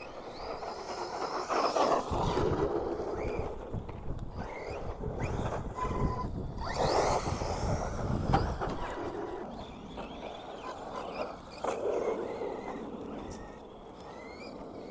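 Arrma Outcast 4S BLX stunt truck run hard on a 4S LiPo: its brushless motor whines up and down in pitch in repeated bursts of throttle, with tyres churning through loose dirt.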